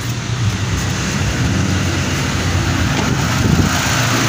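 Gasoline car engine with coil-on-plug ignition idling steadily after a new ignition coil is fitted to the misfiring cylinder; it now runs smoothly and the misfire is gone.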